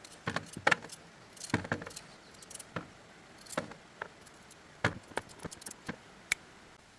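Hard pieces of coconut meat knocking and clinking against a bowl as they are washed, in scattered irregular clicks with a few louder knocks.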